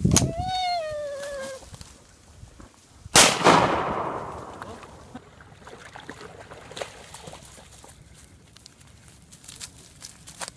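Two shotgun shots: a sharp crack at the start and a louder blast about three seconds in that rolls away over a couple of seconds. A short wavering call sounds just after the first shot.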